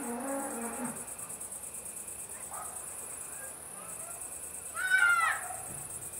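Crickets chirring steadily in a high, fast-pulsing trill. About five seconds in, a louder animal call cuts across it: a short pitched call that arches up and back down.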